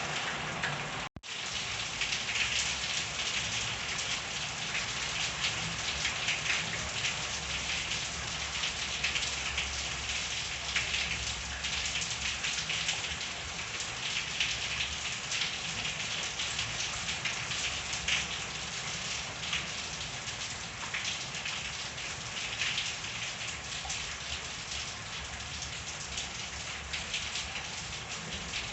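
Steady rain falling, a dense patter of drops on surfaces, cut by a split-second dropout about a second in.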